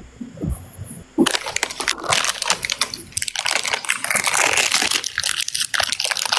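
Dense crackling and crunching noise, a rapid jumble of many small clicks, starting suddenly about a second in.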